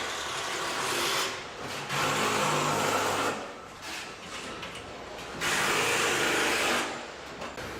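Car assembly-line machinery: three bursts of loud hissing noise, each over a second long and a couple of seconds apart, over a fainter low machine hum.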